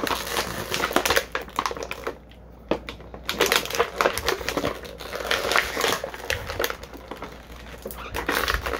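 Plastic toy packaging crinkling and rustling as small figure accessories are unpacked, with quick clicks and taps, coming in bursts with a brief lull about two seconds in.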